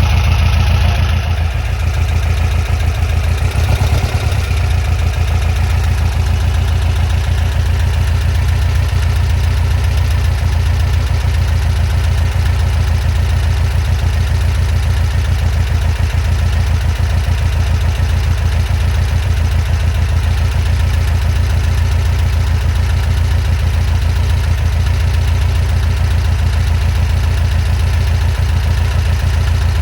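Air-cooled VW flat-four engine idling steadily, with an even low-pitched beat.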